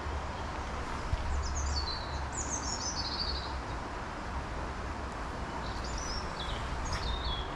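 A small songbird singing short, quickly descending phrases four times, over the steady rush of river water and a low wind rumble on the microphone. A single brief knock about a second in.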